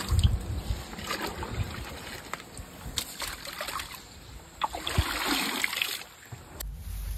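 Water splashing and pouring as a metal pot on a long pole is dipped into a shallow, muddy ditch and lifted out full, with a few sharp knocks.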